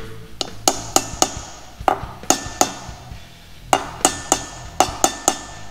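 Light hammer taps driving a new roller pilot bearing into the end of a crankshaft, metal on metal, about a dozen strikes in three short bursts. Each strike leaves a brief metallic ring.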